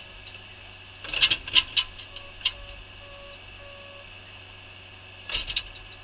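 Tracked skid steer running steadily, with a hammer-type post driver set on a wooden post giving a cluster of knocks and clanks about a second in and another near the end. Four short beeps sound in the middle.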